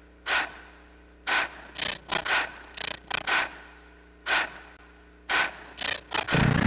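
Sharp gasps for air, about one a second with a quicker run of several in the middle and again near the end, as the opening of a contemporary dance solo's soundtrack; loud music comes in just before the end.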